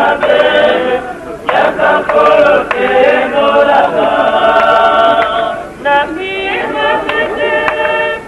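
A group of voices singing or chanting together, with long held notes and short breaks between phrases.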